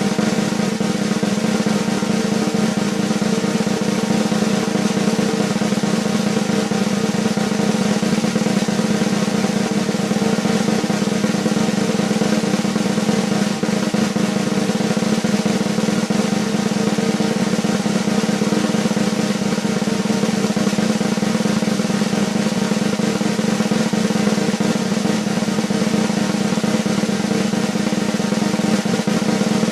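Snare drum roll, a steady sustained roll of fast, even strokes held at one level without a break or final hit.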